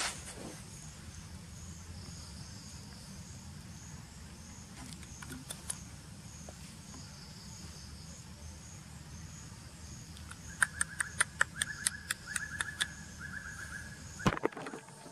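Insects chirping outdoors in a high, evenly repeating pulse about twice a second, over a low steady rumble. About two-thirds of the way through comes a quick run of sharp clicks with a held higher tone.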